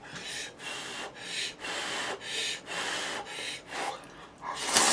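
A man slurping a mouthful of instant jjajang noodles close to the microphone: quick noisy slurps about twice a second, with a louder, longer slurp near the end.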